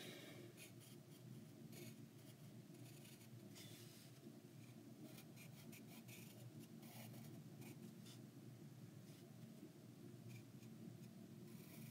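Colored pencil scratching faintly on sketchbook paper in many short, quick shading strokes, over a low steady hum.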